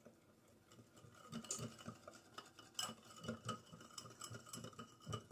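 Small wire whisk stirring a lemon glaze in a small glass bowl, its wires tapping and scraping against the glass in a quick, uneven run of faint clinks that starts about a second in.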